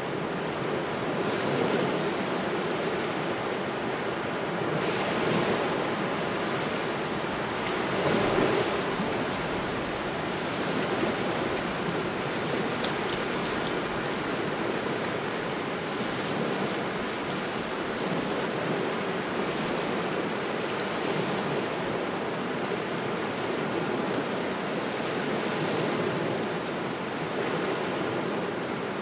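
Small waves washing onto the shore in a cold, gusting wind, the surf swelling and easing every few seconds.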